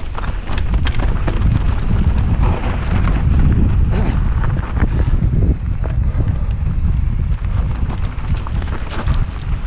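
Mountain bike ridden fast down a loose rocky trail: wind buffeting the microphone over a heavy rumble, with a steady scatter of sharp clicks and rattles from tyres on stones and the jolting bike.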